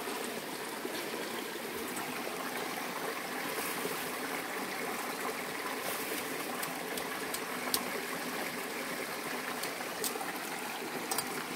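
A stream running steadily, with a few sharp clicks from handling things close by, scattered through the second half.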